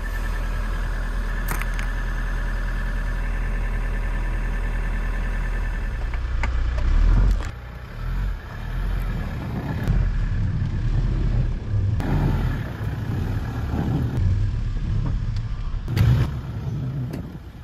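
Toyota Hiace's 2.8-litre diesel turbo engine running just after a cold start in freezing weather, with a steady higher whine over it. After about seven seconds it gives way to uneven low rumbling with a few louder swells.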